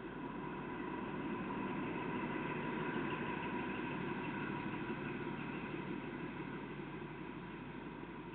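XPT diesel passenger train passing a PN steel freight train: a steady rumble of wheels and running gear with a few held whining tones above it, building to its loudest about three seconds in and slowly easing off.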